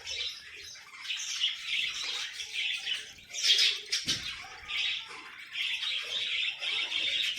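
Small pet birds chirping and chattering continuously in quick, high-pitched chirps, with a brief thump about four seconds in.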